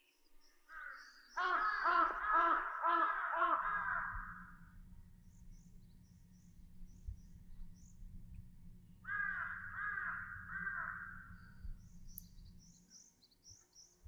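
Crows cawing: a quick run of caws about a second and a half in, and a shorter run about nine seconds in. Small birds chirp faintly and high in between, over a low rumble.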